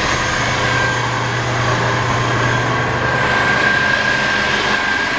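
Fire rescue truck's diesel engine idling steadily, a low hum with a steady high whine above it that grows stronger about halfway through.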